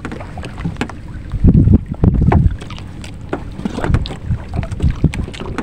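Wind buffeting the microphone in gusts, strongest about one and a half and two and a half seconds in, over water lapping at a small wooden outrigger boat, with scattered light knocks and clicks.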